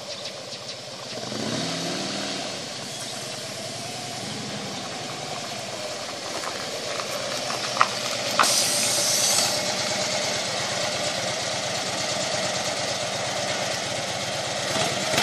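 Harley-Davidson Road King's V-twin engine running at low speed. Two sharp clicks and a short hiss come about eight seconds in.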